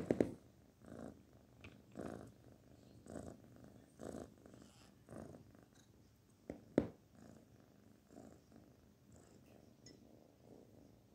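Kitten purring, the purr swelling and fading about once a second with each breath and growing fainter in the second half. Two sharp knocks a little past the middle.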